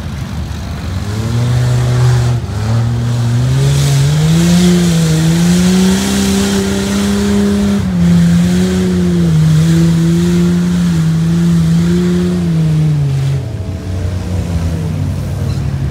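Off-road vehicle's engine revving hard as it is driven across a dirt field: the pitch climbs over the first few seconds, holds high with small rises and dips, then drops away about thirteen seconds in.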